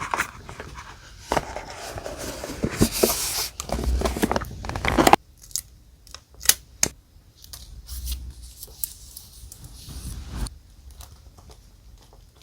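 Close-miked paper handling while decorating a journal with die-cuts: dense rustling and crinkling of paper for about five seconds that stops abruptly, then a few sharp light taps and clicks and softer rustling.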